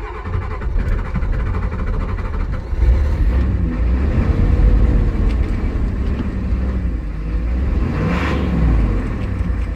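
Ford 6.9-litre IDI V8 diesel in a 1986 F-350 starting after the glow plugs have been cycled, then running. It comes on suddenly and runs louder from about three seconds in, with its pitch rising and falling a couple of times.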